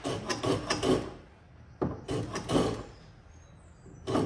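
Shoulder plane taking shaving strokes along a wooden housing joint to neaten it: three scraping passes about two seconds apart, the last one starting near the end.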